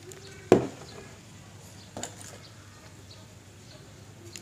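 Handling clicks of a digital multimeter as it is set up to measure battery voltage: one sharp click about half a second in and a fainter one about two seconds in, over faint room noise.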